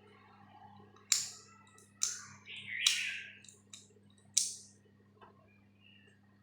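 Sharp clicks and clacks of small hard parts being handled, about five over a few seconds, with a short scraping rub in the middle, while a faint low electrical hum runs underneath.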